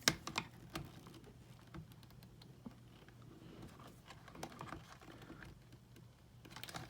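Faint, irregular clicks and scrapes of a flathead screwdriver working between a metal washer and a plastic boot shell, prying and bending the washer so the buckle can come off. One sharper click right at the start.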